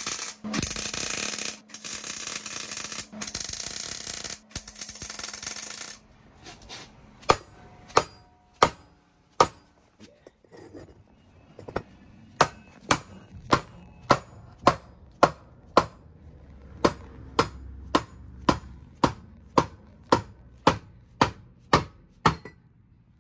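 A welder laying tack welds, a crackling buzz in short stretches for about six seconds. Then a hammer strikes the welded-on piece about twenty times, roughly two blows a second in three runs, driving the stuck factory sleeve off the stock Toyota transfer case.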